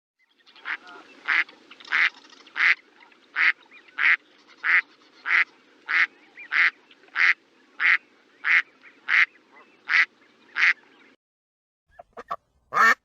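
A duck quacking in a steady series of about sixteen short quacks, roughly one and a half a second, which stops about eleven seconds in. A few faint clicks and a brief louder sound follow near the end.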